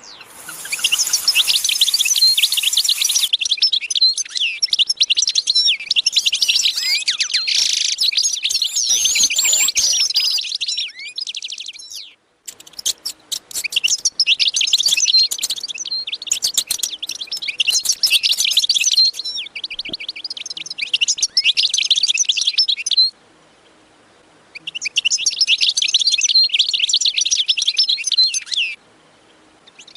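A flock of small birds chirping and twittering in dense, rapid chatter, in several stretches that stop abruptly, as if cut together.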